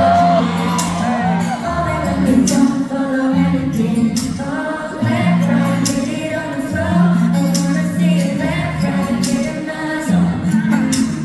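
Live pop music over a concert sound system, heard from within the crowd: a woman singing over a backing track with a steady bass line and regular percussion hits.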